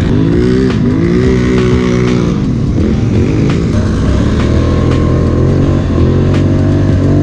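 Polaris ATV engine under way on a dirt trail, its pitch rising and falling several times as the throttle is worked. It settles into a steadier run near the end.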